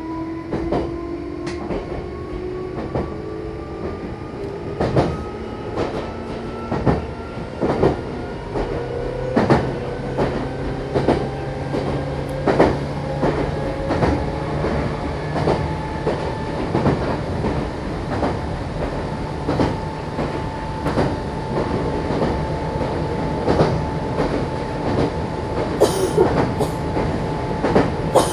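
Meitetsu Bisai Line electric train under way: the motor whine rises slowly in pitch as the train picks up speed and levels off about halfway through, while the wheels click over rail joints at a regular beat.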